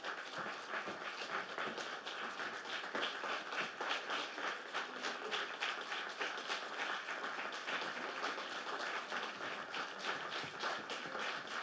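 Audience applauding: a steady, dense patter of many hands clapping in a small hall.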